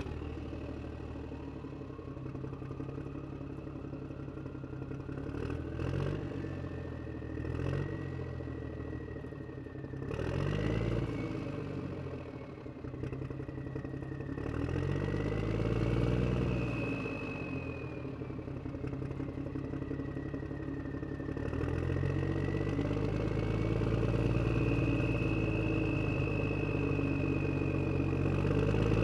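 A motor vehicle engine running just after starting, revved up and down several times between stretches of idle, with a thin whine climbing in pitch over the first few seconds. It runs louder and steadier over the last several seconds.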